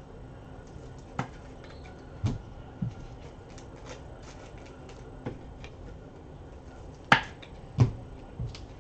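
Trading card packs and cards being handled on a table mat: scattered light clicks and taps, a sharp knock about seven seconds in, and a few dull thumps as things are set down.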